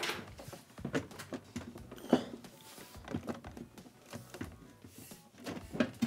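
Sheet-metal knocks and clunks as a dishwasher's stainless outer door panel is slid down onto the door and worked into place, a dozen or so irregular taps with the loudest about two seconds in.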